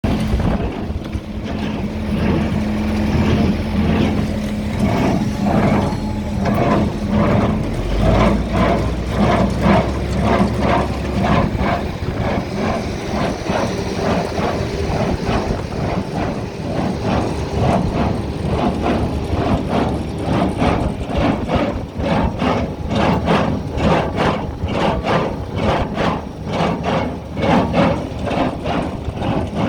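Massey Ferguson 1840 small square baler running off a tractor's PTO, its mechanism clattering in a fast, even rhythm over the steady running of the tractor engine.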